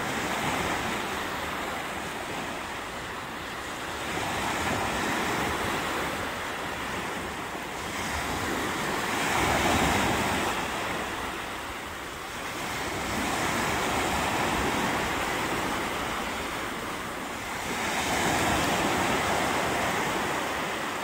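Small waves breaking at the shoreline and washing up the sand, the surf swelling and fading about every four to five seconds.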